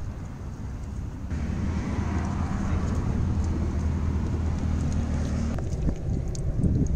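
A car's engine running slowly with its tyres on wet pavement: a steady low hum sets in about a second in and drops away near the end, with a few faint clicks.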